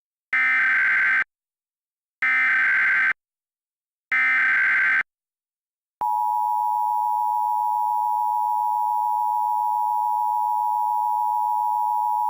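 Emergency Alert System alert opening: three identical buzzy digital data bursts (the SAME header), each just under a second long and about a second apart. About six seconds in, the steady two-tone EAS attention signal starts and holds unbroken. This sequence announces an emergency alert broadcast.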